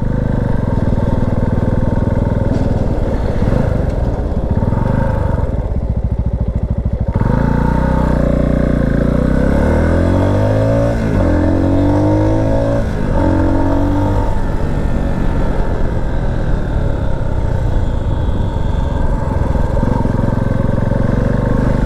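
Single-cylinder Herald motorcycle engine running on the road, heard from the bike. About a third of the way in it gets louder and the revs rise and fall several times as it accelerates up through the gears, then it holds a steady cruise.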